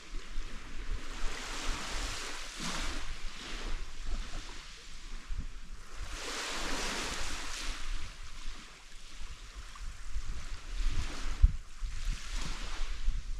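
Small waves washing onto the shore, the hiss swelling three times about every four to five seconds, with wind buffeting the microphone.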